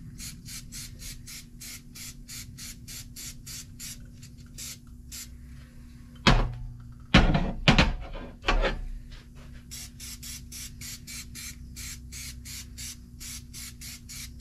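Aerosol can of crack-check developer being shaken, its mixing ball rattling at about four strokes a second. The rattling breaks off about halfway through for a few louder knocks and thumps, then resumes.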